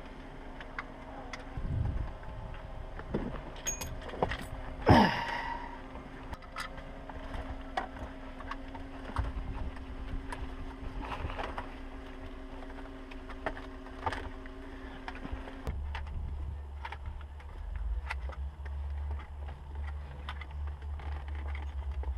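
Scattered clicks and knocks of car interior trim being unclipped and handled, over a steady low hum that gives way to a low rumble about two thirds of the way in. One loud, brief falling sweep stands out about five seconds in.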